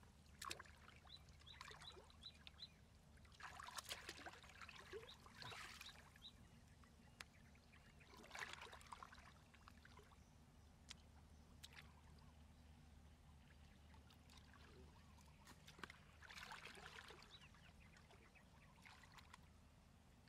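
Faint water sloshing and splashing from a person wading through a shallow muddy pool, coming in several separate bouts with near quiet between them.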